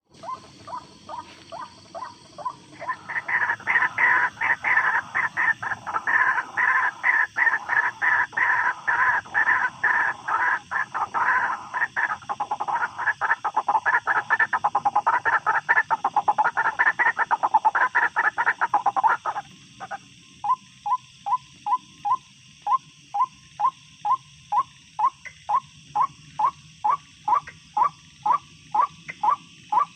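White-breasted waterhen calls as used for a trapping lure. A dense, loud chorus of rapid croaking notes runs from about three seconds in. About two-thirds of the way through it breaks off into a steady series of single notes, two or three a second.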